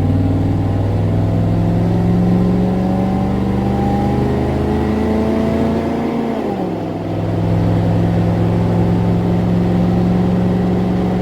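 Pickup's 5.7-litre V8 with a Cherry Bomb muffler exhaust accelerating at about three-quarter throttle, its note rising steadily, then dropping abruptly at an upshift about six and a half seconds in, then holding steady.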